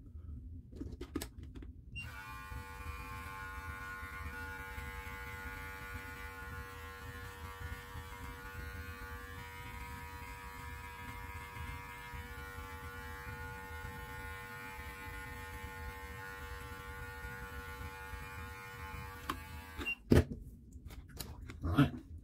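Electric beard clippers running with a steady hum while trimming underneath a long beard, switched on about two seconds in and off again near the end, followed by a few sharp clicks and knocks.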